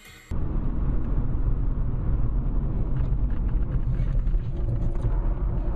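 Steady low rumble of a car driving, engine and road noise picked up by a dashcam; it starts abruptly just after the beginning.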